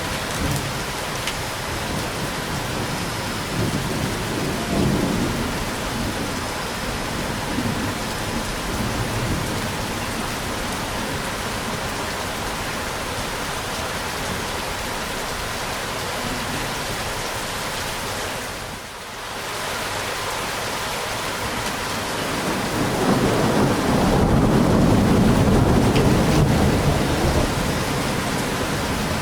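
Steady rain falling with rolling thunder. The rain briefly dips about two-thirds of the way through, then a louder, longer rumble of thunder swells up and fades near the end.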